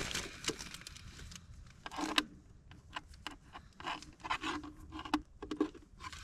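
Handling noises: a string of irregular small clicks, scrapes and rustles as camping gear and a small air compressor are fumbled with by hand, with no motor running.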